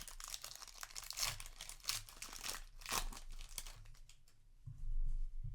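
Foil wrapper of a Yu-Gi-Oh! booster pack crinkling and being torn open by hand, a dense run of crackles that thins out after about three seconds.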